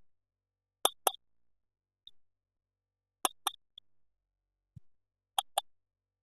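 Plastic toy parts being handled, making sharp double clicks: three pairs about two seconds apart, with a couple of faint ticks and soft low thumps between them.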